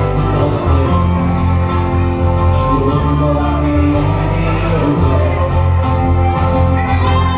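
Live folk band playing an instrumental passage: a tin whistle over strummed acoustic guitars, bass guitar and fiddle.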